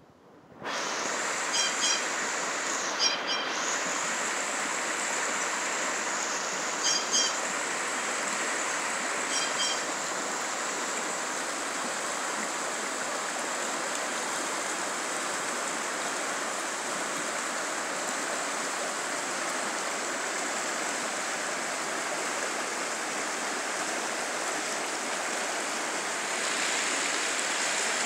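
Shallow mountain river rushing steadily over rocky riffles, a continuous even water noise that starts abruptly less than a second in. A few short high chirps break through over it about 2, 3, 7 and 9 seconds in.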